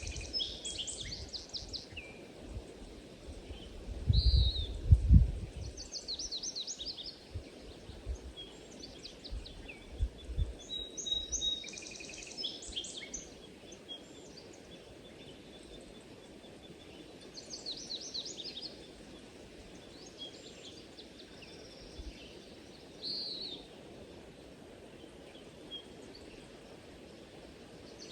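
Small birds chirping and trilling in short calls scattered throughout, over a steady background hiss, with a few brief low rumbles about four to five seconds in.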